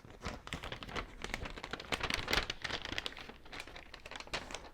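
Paper rustling and crinkling with many small irregular crackles as a folded paper instruction manual is handled and worked open by hand.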